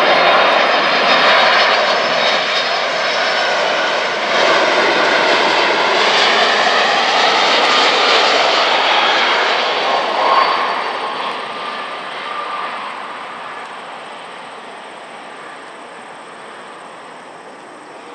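Jet engines of a landing Boeing 767-300 airliner, a loud steady rush with a faint whine as it passes close, fading away over the last several seconds as the plane moves off toward the runway.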